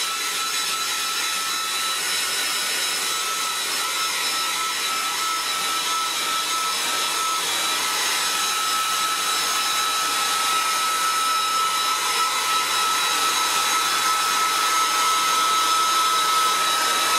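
Handheld hair dryer running steadily: the rush of air with a high, constant motor whine over it.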